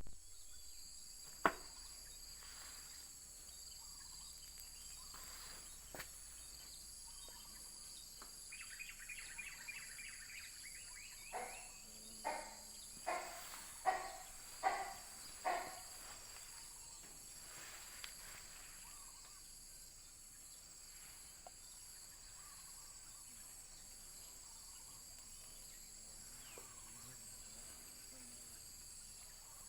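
Steady high-pitched insect chorus, with a sharp click about a second and a half in. About eight seconds in, an animal gives a rapid rattle, then six loud calls a little over half a second apart, swelling and then fading.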